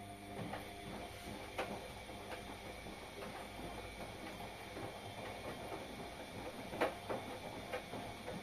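Washing machine running through its wash: a steady motor hum and drum noise, with scattered light knocks, the loudest about a second and a half in and near the end.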